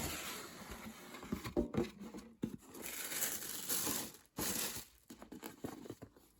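Packaging being handled and opened by hand: crinkling, rustling and tearing with a few small knocks. It thins out to scattered quieter handling sounds in the last second or two.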